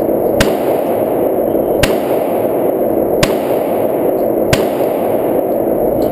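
Four Glock pistol shots, evenly spaced about one every second and a half, each a short sharp crack, over a steady rushing noise.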